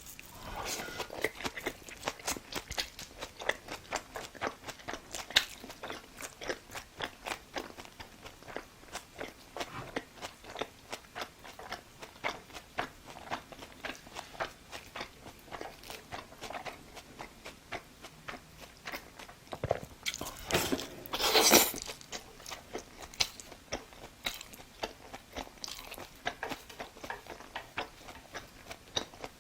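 Chewing and crunching food in the mouth: a steady run of short clicks, with a louder, noisier stretch about twenty seconds in.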